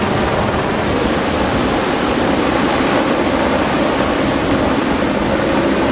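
Breaking ocean surf: a steady, even rushing noise that does not change.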